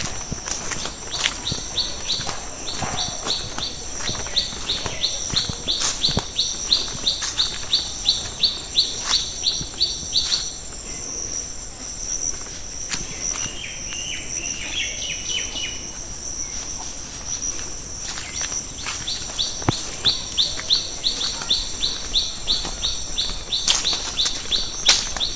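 Countryside ambience: a steady high insect drone. Over it, a short high call repeats about three times a second in two long runs, with a brief twittering between them.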